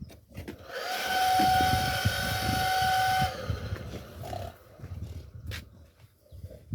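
A cat hissing: one long hiss of about two and a half seconds, starting about a second in, with a steady high squealing note running through it.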